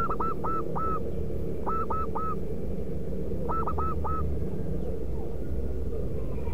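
Zebra dove (perkutut) calling: three quick runs of short hooked cooing notes, four, then three, then three, within the first four seconds. A steady low rumble runs underneath.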